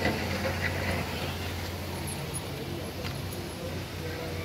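A vehicle engine running with a steady low hum, mixed with noise.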